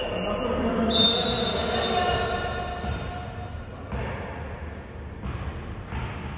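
Basketball shoes squealing on the court, one sharp high squeal about a second in and fading squeaks after it. A few ball bounces come in the second half.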